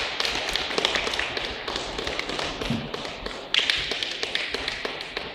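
Spectators applauding, a dense patter of claps that swells again about halfway through.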